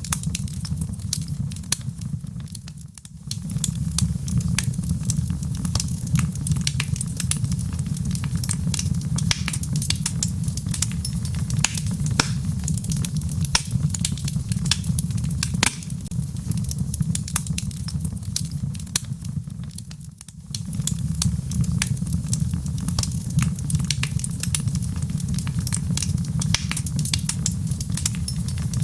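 Wood fire of burning logs in a fireplace crackling: frequent sharp pops and snaps over a low steady rumble. The sound dips briefly twice.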